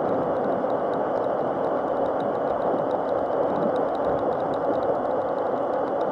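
Steady rushing noise of a Razor MX500 electric mini dirt bike being ridden over paving, with a faint, rapid, even ticking.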